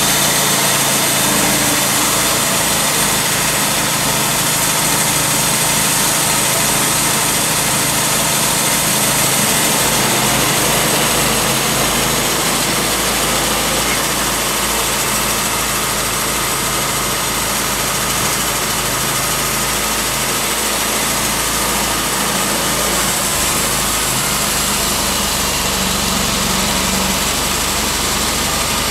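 Timberking B-20 portable band sawmill running steadily under power, its engine driving the band blade as the saw head travels along a walnut log.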